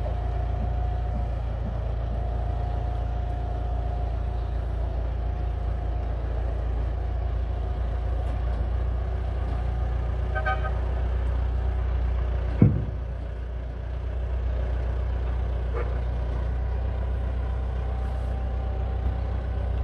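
Engine of the tow vehicle running steadily as it pulls a large motor yacht on a hydraulic boat trailer along a road. A brief toot-like tone sounds about ten seconds in, and a single sharp thump follows a couple of seconds later.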